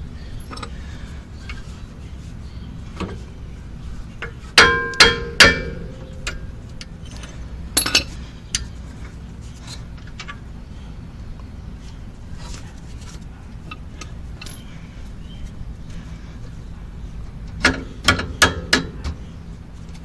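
Sharp metal-on-metal taps and clinks with a brief ring, from brake caliper hardware and tools as the pad spring is pressed down and the retaining pin is fitted. There are three quick ones about five seconds in, a single one near eight seconds, and four in quick succession near the end.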